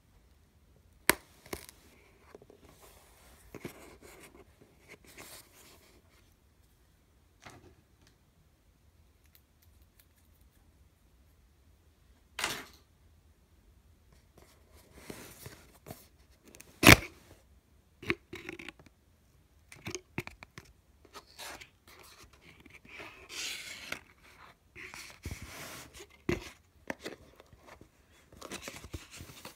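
Cardboard shipping box being opened by hand: a small craft knife scraping through packing tape, then flaps and an inner box handled and slid out. Irregular rustles, scrapes and sharp clicks, the loudest a single snap about two-thirds of the way through.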